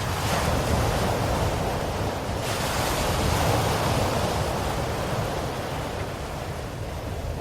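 Ocean waves washing onto the shore in a continuous surf: a wave surges in about three seconds in, then slowly ebbs.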